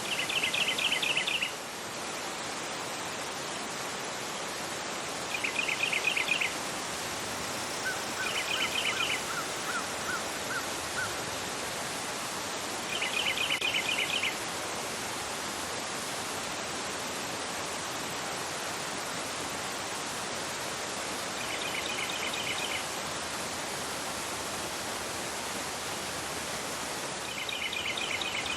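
River water rushing fast over a rocky bed in a steady, even rush. Over it a bird sings short rapid trills, six times with gaps of several seconds between them, and about a third of the way in a second, softer series of lower notes is heard.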